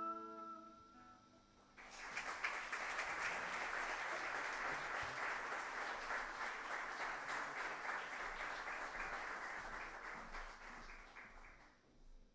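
The last acoustic guitar chord rings out and fades. About two seconds in, an audience starts applauding steadily, and the applause dies away near the end.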